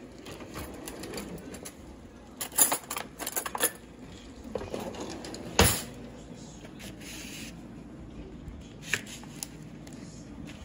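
Rummaging in a wooden kitchen drawer: a quick run of clicks and clinks of utensils, then a single sharp knock about five and a half seconds in, with a couple of lighter clicks later.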